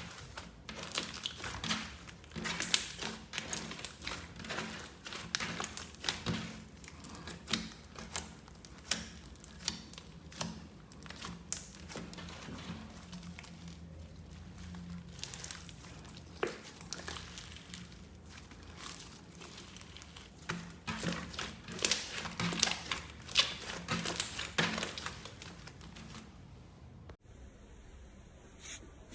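Slime being squeezed and pressed by hand, giving dense, irregular crackling and popping clicks. It stops abruptly a couple of seconds before the end.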